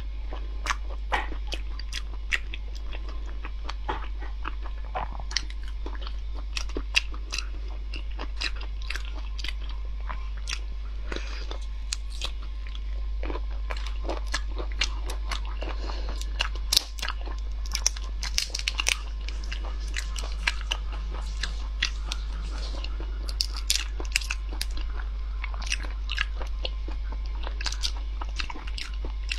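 Close-miked eating of a large black tiger prawn: chewing mixed with the crackle of its shell being pulled apart by hand, many short sharp clicks and snaps over a steady low hum.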